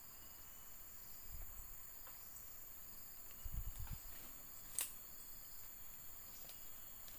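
Footsteps and rustling through forest undergrowth: a few soft thumps about a second and a half in and again around three and a half seconds, and one sharp click near five seconds. A steady high insect drone runs underneath.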